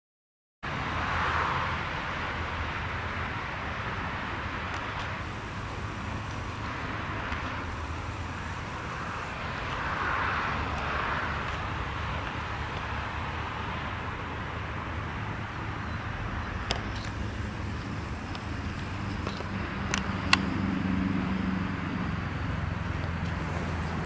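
Steady outdoor background of distant road traffic: a low, even rumble that swells about a second in and again about ten seconds in as vehicles pass. A few sharp clicks come in the second half.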